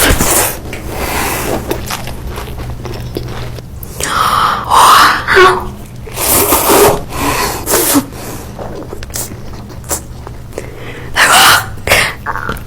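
Close-miked eating sounds: bites, crunching and mouth noises in several short loud bursts, over a low steady hum.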